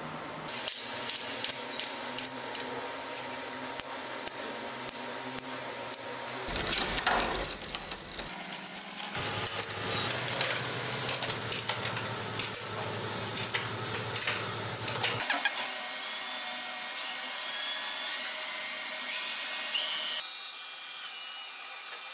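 Irregular sharp mechanical clicks and ratchet-like ticks over a steady hum, broken into abrupt segments, with a louder whirring stretch a few seconds in. Near the end the clicks give way to steady high whines.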